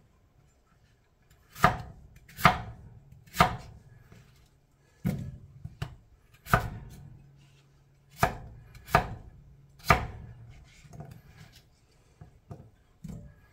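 Kitchen knife chopping potatoes on a cutting board: about eight sharp, unevenly spaced chops, then a few lighter taps near the end.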